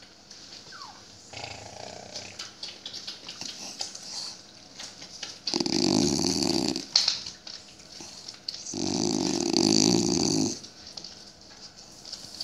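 A short-muzzled dog growling twice, each a long, low, rough growl of one to two seconds, about halfway through and again near the end, with faint rustling of hands on its fur in between.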